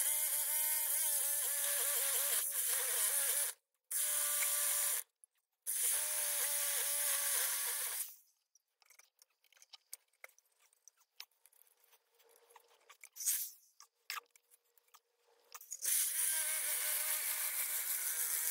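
Corded Makita reciprocating saw cutting through a copper-aluminium radiator coil clamped in a vise, running in three stretches over the first eight seconds with short breaks between. Scattered clicks and knocks follow for about eight seconds, then the saw runs and cuts again from about two-thirds of the way through.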